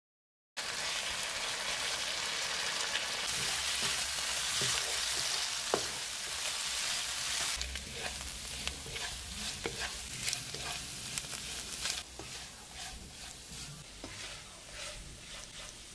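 Beef pieces in spiced masala frying and sizzling in a nonstick wok while a spatula stirs and scrapes through them. The sizzle starts after a brief silence and is steady at first. It drops in level about halfway and again near the end, where the spatula's scrapes and clicks stand out as the beef fries dry.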